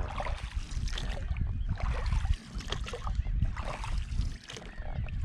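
Water splashing and lapping around a small boat, in irregular bursts over a steady low rumble.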